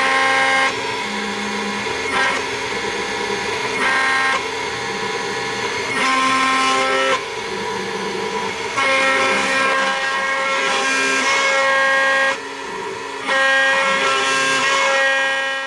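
CNC engraving machine cutting letters into a plate with a small end mill: the spindle runs steadily while the axis motors whine in several tones that change pitch every second or two as the tool changes direction. It drops quieter for a moment near the end.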